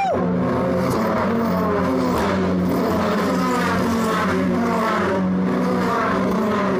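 Racing car engines running at high revs on the circuit, their pitch rising and falling.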